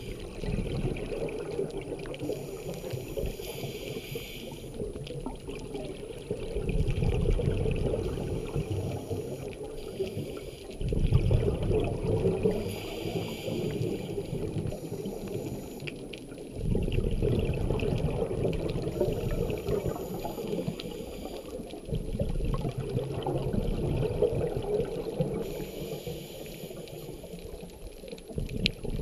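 Underwater noise of a scuba diver breathing: a short hiss from the regulator on each breath in, then a long bubbling rumble of exhaust bubbles on each breath out, repeating every several seconds.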